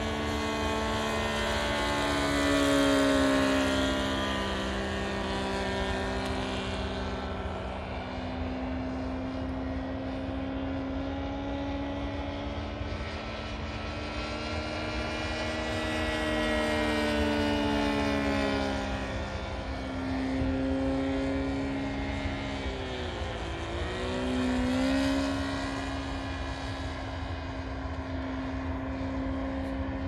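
Saito FG-33R3 33cc three-cylinder gas radial engine running in flight on an RC biplane, a steady drone whose pitch slowly rises and falls as it passes, growing louder three times. A little over two-thirds through, the pitch dips sharply for a moment, then recovers.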